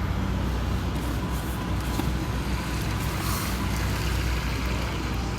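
Steady low rumble of a vehicle engine running, with no change in pitch or level.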